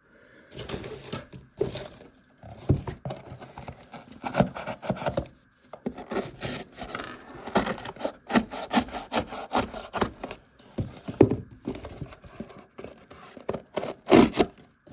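Irregular rubbing and scraping strokes from a carabiner multitool being worked by hand, the loudest stroke near the end.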